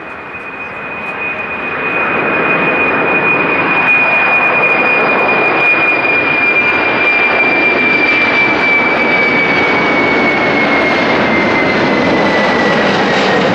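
Boeing 747-400's four jet engines as it climbs out after takeoff: a loud roar that builds over the first two seconds and then holds steady, with a high whine that slowly drops in pitch as the jet passes overhead.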